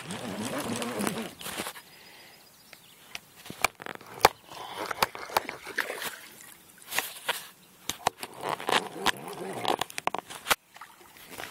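A pike thrashing and splashing in lake water while being reeled in on a bent fishing rod, in several rough bursts, with sharp clicks and knocks scattered throughout, the loudest about four seconds in.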